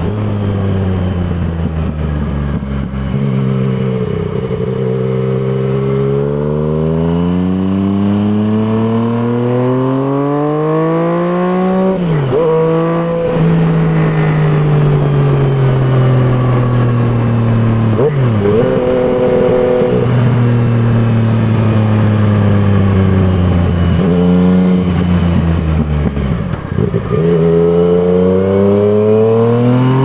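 Yamaha Tracer 900's three-cylinder engine, breathing through an Akrapovic full titanium exhaust, revving up through a long pull, with quick gear changes about twelve and eighteen seconds in. It then eases off with more gear changes and builds revs again near the end.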